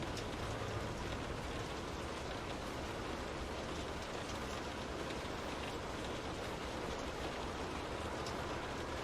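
Steady rain pattering on a window, an even hiss with scattered small drop ticks.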